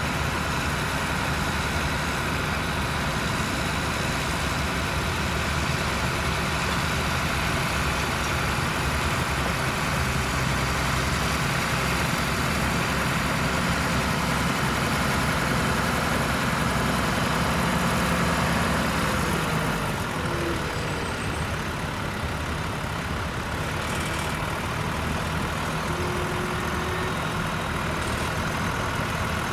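Tractor engine running steadily at a low, even speed, a little quieter from about twenty seconds in.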